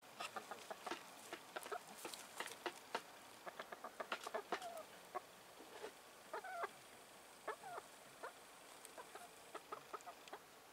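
A flock of brown hens clucking close up: short, sharp clucks in quick runs, with a few longer wavering calls about halfway through.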